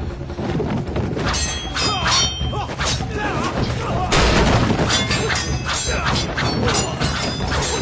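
Film fight sound effects: a rapid run of thuds and blows with ringing metal blade clashes, fighters' shouts and grunts, and a score underneath, growing denser and louder about four seconds in.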